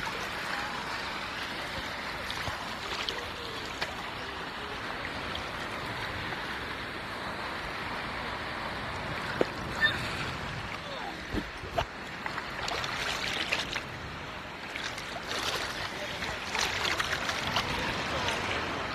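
Steady wash of moving water, with small splashes now and then in the second half.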